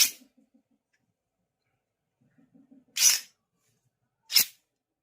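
Three short, sharp whooshing bursts: one at the start, one about three seconds in and a quicker one near the end. Faint rapid chirping pulses come between the first two.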